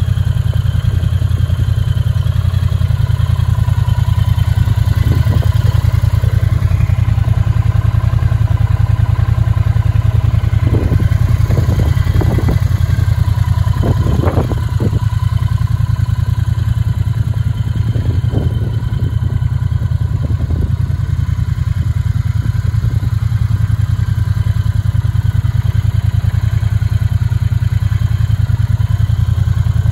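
Triumph Bonneville T120's 1200 cc parallel-twin engine idling steadily, with an even low rumble.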